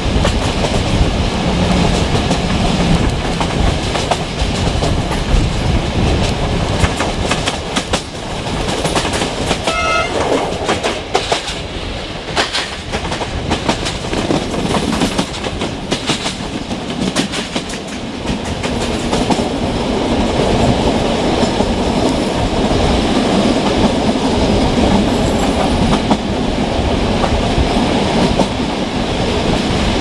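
Train wheels running at speed on the rails, heard from an open coach window: a steady clickety-clack over the rail joints with rushing running noise. A short tone sounds about ten seconds in.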